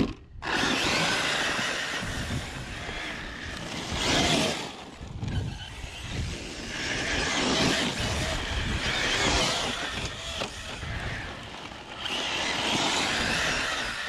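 A short thump right at the start, then a 6S electric RC rally car driven hard across dirt and grass. The brushless motor whines over the noise of the tyres spraying dirt, swelling with each burst of throttle: about four seconds in, around eight to nine seconds, and near the end.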